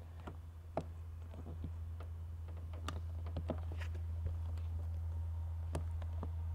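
Faint, scattered small plastic clicks and taps as solar-panel cable connectors and the cap of a rooftop solar docking port are handled, over a steady low hum.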